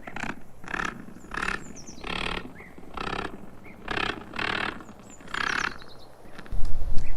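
Spider stridulation: a series of about eight short, raspy hisses, roughly one every half second to a second. A loud deep rumble comes in near the end.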